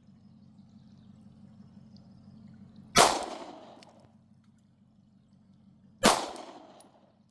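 Two shots from a Glock 19 Gen 3 9mm pistol, about three seconds apart, each followed by an echo that dies away over about a second.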